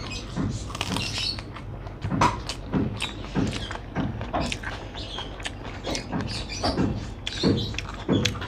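Close-up chewing and wet mouth sounds of someone eating rice and chicken curry by hand, with a run of short clicks and soft smacks about two a second as she chews and fingers mix the rice on the plate.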